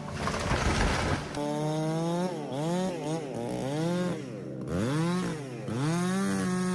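Chainsaw engine revved up and down over and over, its pitch climbing and dropping about five times. The first second is a rougher, noisier run.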